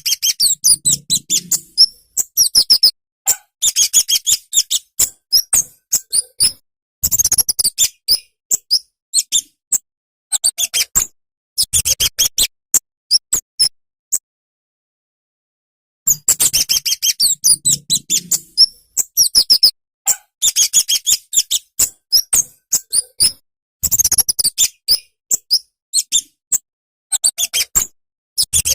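Flowerpecker (kemade, or cabe-cabean) singing: rapid trains of sharp, high-pitched chips and ticks in bursts of a second or two. There is a pause of about two seconds halfway through.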